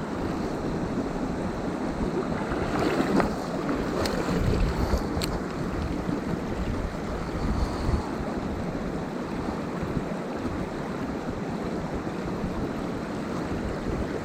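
Mountain stream's rushing water, a steady noise, with a couple of light clicks about four and five seconds in.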